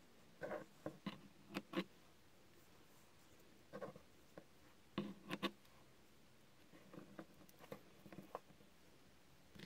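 Soft clicks and taps in a few short clusters, about four groups, from a spool of craft thread being handled and the thread being cut with small scissors.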